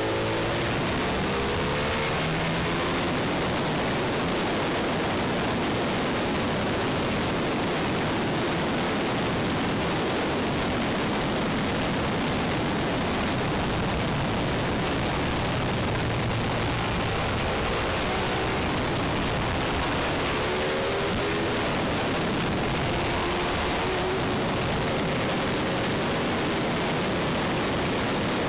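Steady, loud wind rush over the microphone of an onboard camera on a Ducati 848 Evo at track speed. The bike's L-twin engine is faint beneath it, its pitch rising and falling with the throttle near the start and again later on.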